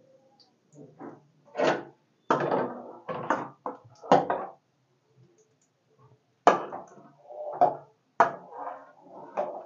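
A string of irregular knocks and clatter from kitchen things being handled, about a dozen, with a pause of about a second and a half in the middle.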